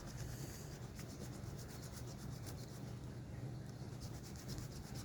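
Scraping the silver coating off a scratch-off lottery ticket in quick repeated strokes, over a faint steady low hum.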